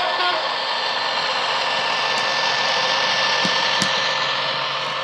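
A Hornby Class 67 model locomotive's ESU LokSound decoder playing a modified Class 67 diesel engine sound through a small ESU speaker, a steady hissing engine drone that swells slightly as the model passes and eases near the end. The last of a horn note fades at the very start, and two clicks come about three and a half seconds in.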